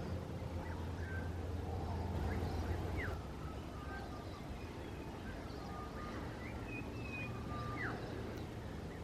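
Garden birds singing at dawn: scattered thin whistled notes and short rising and falling chirps, over a steady low rumble that eases about three seconds in.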